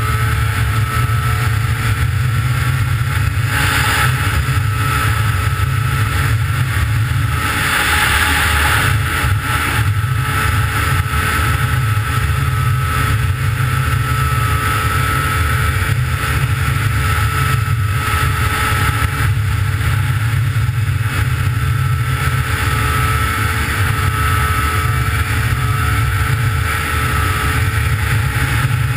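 Snowmobile engine running at a steady speed under way, heard loud from on board. A rushing noise sits over the engine and swells briefly about four and eight seconds in.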